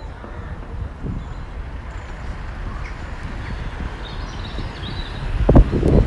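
Outdoor park ambience: a steady low rumble of wind on the microphone, with a few faint bird chirps about four seconds in and a louder low thump near the end.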